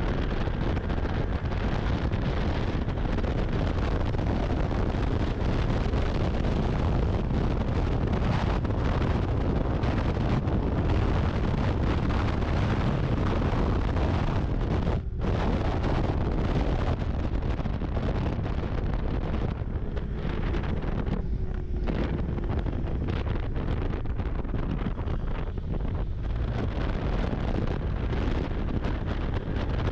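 Snowmobile engine running under heavy wind buffeting on the microphone: a steady rumble that breaks off only briefly about halfway through.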